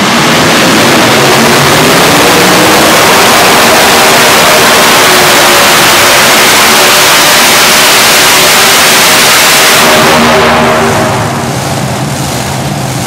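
Multi-engine modified pulling tractor under full throttle, dragging the weight-transfer sled, with a loud, continuous engine blare. About eleven seconds in the engines back off to a lower, steadier run as the pull ends.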